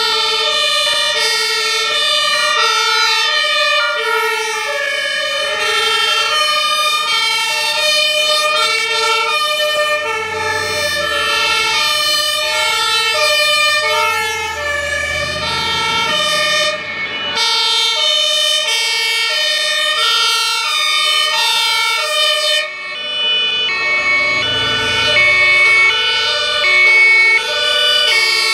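Several German fire-truck two-tone sirens (Martinshorn) sounding together, each stepping back and forth between a high and a low note about every half second, out of step with one another. Heavy fire-truck diesel engines rumble as they pass, strongest in the middle and again near the end.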